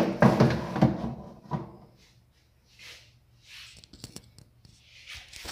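A sharp knock, then about a second and a half of muffled rubbing and scraping as the phone is handled with fingers right over its microphone, followed by faint swishes and a few small clicks.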